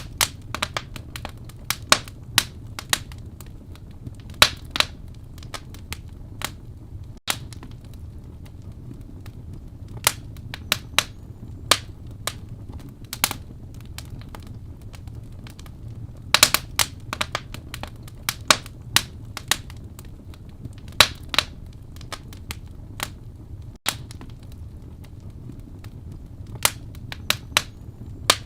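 Wood burning in a fireplace: irregular sharp crackles and pops, some loud and some faint, over a steady low rumble.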